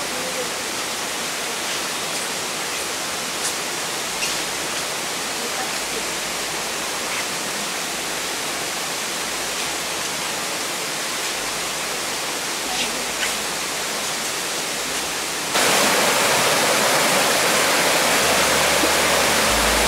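Steady rushing of flowing water, with a few faint high chirps over it. About three-quarters of the way through it jumps abruptly louder: a small jungle stream cascading over rocks close by.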